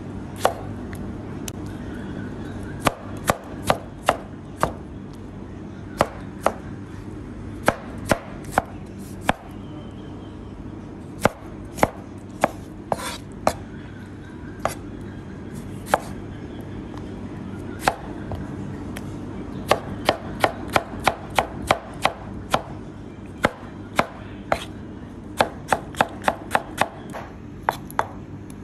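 Chef's knife chopping tomatoes on a white plastic cutting board: sharp, irregular knocks of the blade on the board, at times in quick runs of several strokes a second, over a steady low hum.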